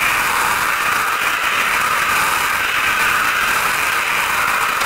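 Tractor-powered Strumyk Tosia bale wrapper running, turning a haylage bale as it pulls stretch film through the pre-stretch rollers: a steady mechanical noise.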